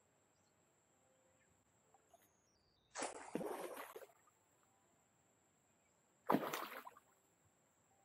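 Two splashes of small objects thrown by hand into still river water near the bank: the first about three seconds in, lasting about a second, and a sharper, shorter one about six seconds in.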